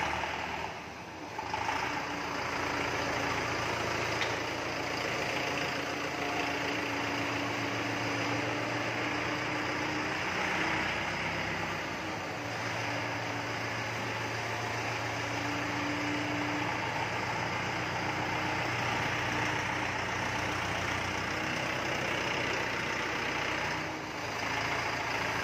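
Mahindra 4025 4WD tractor's diesel engine running steadily as the tractor is driven slowly, with a brief dip in loudness about a second in.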